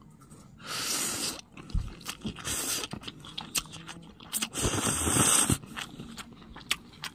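Someone eating instant cup noodles: a plastic fork clicks and scrapes in the paper cup among small chewing sounds. Two longer hissing sounds, about a second in and again near the middle, are the loudest part.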